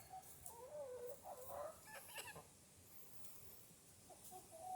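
Chickens calling softly: a few faint, wavering notes in the first couple of seconds, then a pause and one more short held note near the end.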